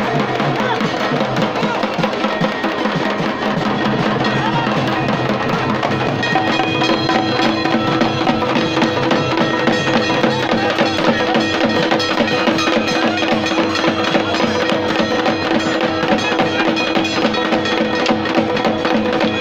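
Bundeli folk drums beaten with sticks in a fast, dense rhythm, with wooden staves clacking among the beats; a steady held note comes in about six seconds in.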